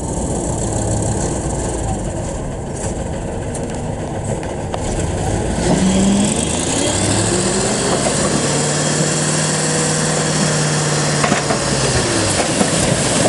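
Diesel dump truck engine running, rising in pitch about six seconds in and holding a steady higher note while the hydraulic hoist lifts the loaded tipper bed, then dropping back near the end as the soil slides out.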